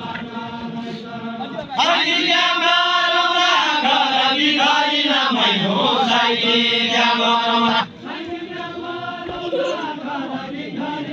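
Deuda folk singing: voices chanting a sung verse in long held, wavering notes. It is loudest from about two seconds in until about eight seconds in, then drops back to softer singing.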